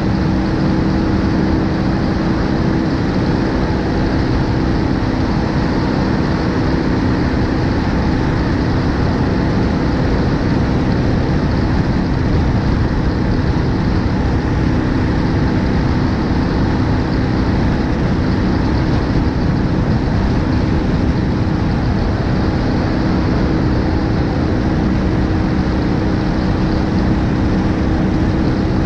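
BMW R1250GS Adventure's boxer-twin engine running at a steady cruise, holding an even note, under a loud rush of wind over the front-mounted action camera.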